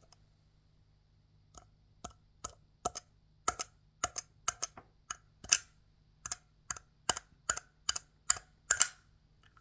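Sharp plastic clicks from a vintage Battle Armor Skeletor action figure's mechanism being worked by hand, after a short pause, about two or three a second at uneven spacing. The part clicks freely, a sign it works again after cleaning.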